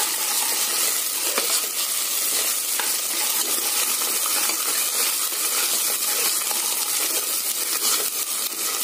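Chopped onions and mint leaves sizzling in hot oil in an aluminium pot, stirred with a steel ladle that scrapes and clinks against the pot now and then.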